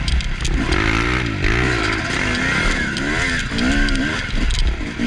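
Dirt bike engine revving, its pitch rising and falling several times as the throttle is worked through the trail. Recorded on a mud-covered action camera on the bike, with clicks and rattling from something loose shaking on the bike.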